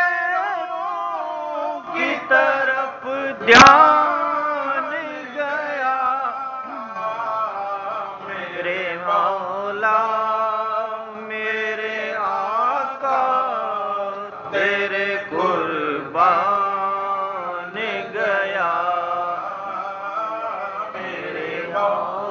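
A man's solo voice chanting an Urdu naat, drawing out long, wavering held notes with short breaths between phrases. A single sharp click about three and a half seconds in.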